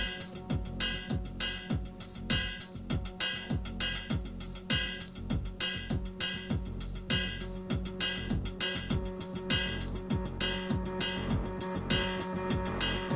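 A one-bar electronic loop: a Korg MS-20 mini synthesizer driven by an SQ-1 step sequencer through a delay, over a drum-machine beat. Sharp hissy hits repeat about twice a second over quick notes that drop in pitch and a steady low drone.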